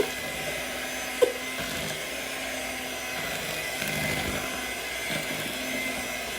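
Electric hand mixer running steadily as it beats cake batter in a bowl, with one sharp knock about a second in.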